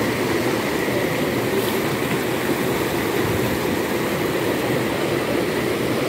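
Shallow mountain stream rushing over rocks close by, a steady, even rush of water.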